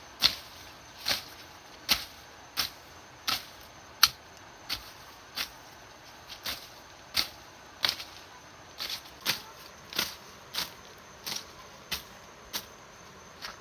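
Footsteps walking at a steady pace along a dirt trail, a short sharp crunch roughly every two-thirds of a second.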